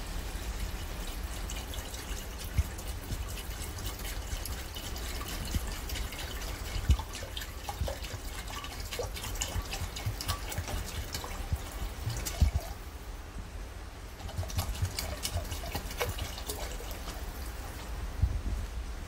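Black sweet rice vinegar pouring from a glass bottle into a hot stainless steel pot of ginger, trickling and dripping with many small crackles as it bubbles in the pan.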